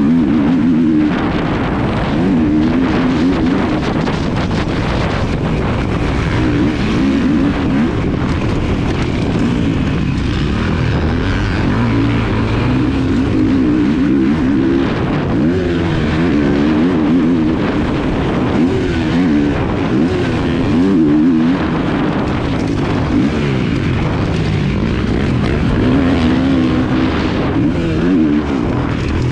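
Kawasaki motocross bike's engine revving up and down through the gears as it is ridden around a dirt track, heard up close from the bike itself.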